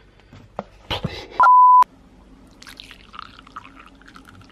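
A censor bleep: one loud, steady, high-pitched beep lasting about half a second, about a second and a half in, blanking out everything under it. It is surrounded by faint clicks and handling noises.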